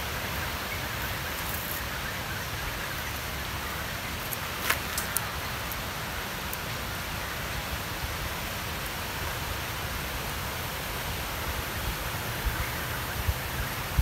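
Steady outdoor background hiss with a low rumble underneath, and a single short click about five seconds in.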